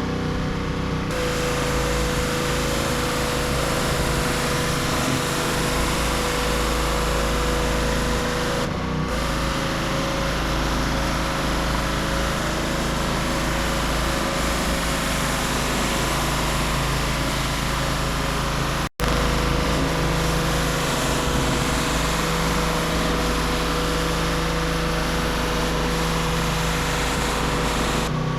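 Pressure washer's engine running steadily under the hiss of high-pressure water spray. The sound cuts out for an instant about two-thirds of the way through.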